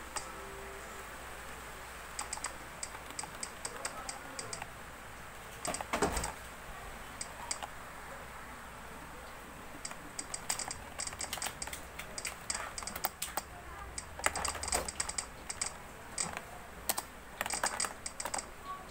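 Typing on a Penble PB-5000 membrane keyboard: irregular runs of soft key presses as the keys are tested one after another, thinning out for a couple of seconds before a denser run in the second half. One heavier thump comes about six seconds in.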